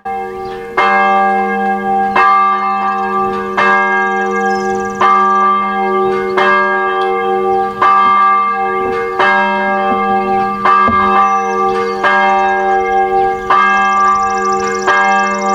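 A church bell ringing, struck in an even rhythm about once every second and a half, each stroke ringing on into the next with a steady hum underneath.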